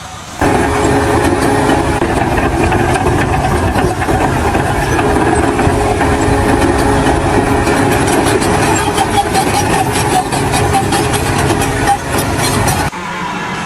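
An engine running steadily, starting abruptly about half a second in and cutting off near the end.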